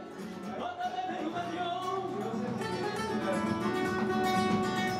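Two Spanish guitars playing a flamenco-style piece together, starting quiet and growing louder.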